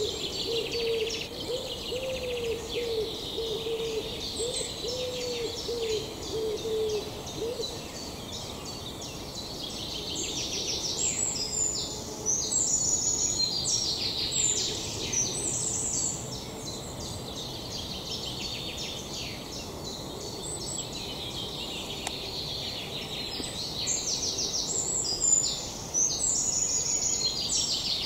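Woodland birdsong: a run of low hooting notes, about two a second, for the first seven seconds or so, with songbirds singing quick, high chirping phrases throughout, busiest in the middle and near the end.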